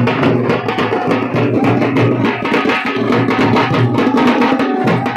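Loud Indian wedding music driven by fast, steady dhol-style drumming, with a faint held melody note near the end.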